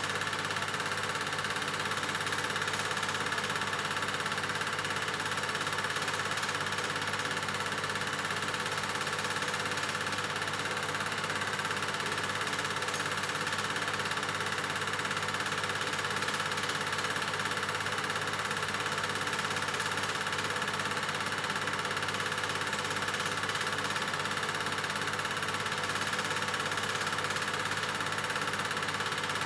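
Bolex 18-3 Duo 8 mm film projector from 1970 running with a reel of film loaded, giving a steady, even mechanical running sound.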